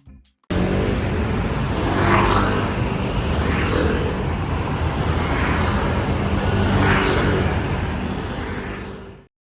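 Road traffic noise on a busy city street, with vehicles passing by about four times and the sound swelling and easing with each pass. It fades out shortly before the end.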